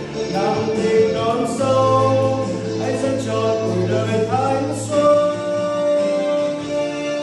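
A man singing over a musical backing, holding one long note from about five seconds in.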